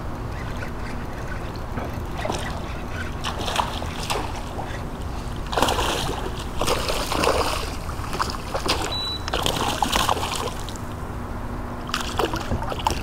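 Water splashing and sloshing in several irregular bursts, the loudest about six seconds in, over a steady low hum.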